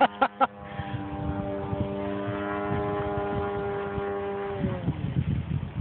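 Electric RC plane's brushless motor and propeller running at steady throttle, a steady droning tone. About five seconds in it winds down quickly as the throttle is cut.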